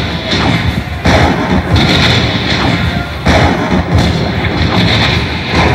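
Slot machine's bonus-win sound effects: a run of heavy thuds over the game's music as the prize values are collected into the win total.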